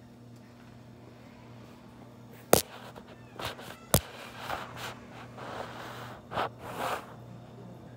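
A low steady hum, broken by two sharp clicks about a second and a half apart, with several soft rustling sounds after them.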